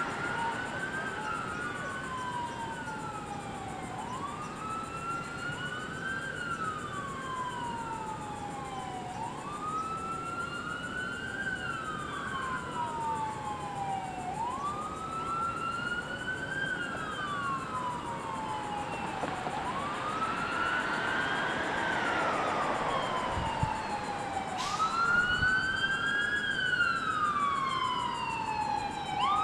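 Police car sirens wailing, several slightly out of step. Each cycle rises quickly and falls more slowly, about every five seconds, and the sirens grow louder near the end.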